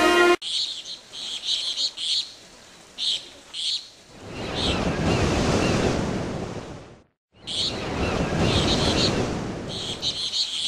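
Orchestral music cuts off, giving way to outdoor ambience of short, high chirps repeating in bursts. About four seconds in, a steady rushing noise joins them; it drops out for a moment around seven seconds and then returns.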